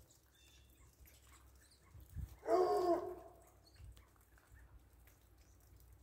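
A dog barks once, a single short pitched bark about two and a half seconds in. A brief low thump comes just before it.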